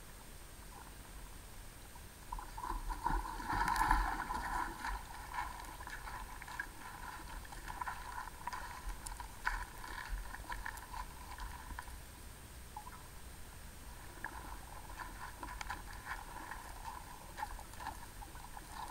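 Creek water heard underwater through a submerged camera: muffled crackling and gurgling with scattered small clicks. It swells about two seconds in, eases off for a moment in the middle, then picks up again. Under it runs a faint steady high tone.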